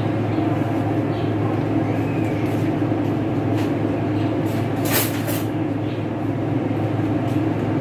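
Steady low mechanical hum from a running motor, with a brief sharp click about five seconds in.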